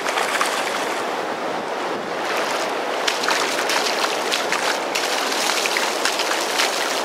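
Shallow surf washing on the beach, with a run of quick splashes from about three seconds in as a hooked mullet thrashes and skips across the surface of the shallows.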